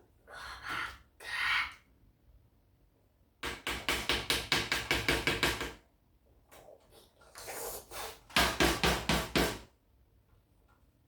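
Rapid knocking, about five or six strikes a second, in two runs of a couple of seconds each, preceded by a couple of short rustling swells.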